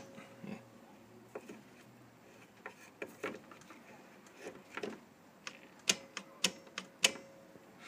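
Irregular metal clicks and clunks, about a dozen, from a 1950s Dürkopp 1031 sewing machine's mechanism being worked by hand, such as the knee-lift presser foot going up and down. The loudest clacks come about six and seven seconds in.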